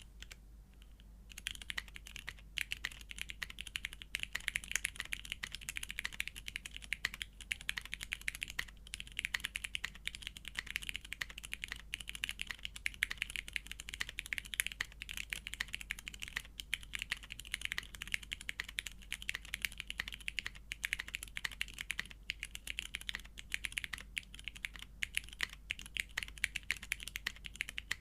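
Custom mechanical keyboard with lubed vintage Cherry MX Brown tactile switches on a polycarbonate plate, with GMK keycaps, being typed on in quick, continuous keystrokes, starting about a second in.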